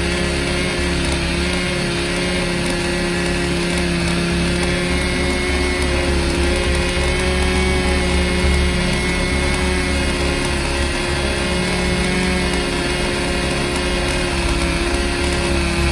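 Small motor running steadily at a nearly constant speed, with an even, unchanging pitch.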